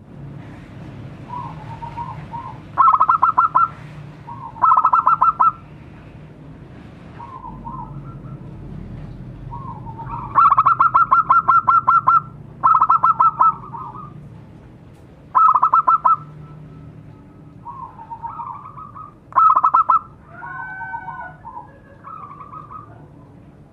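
A zebra dove (perkutut) singing: soft coos broken by about six loud, fast rolled, rattling notes, several of them drawn out for a second or more.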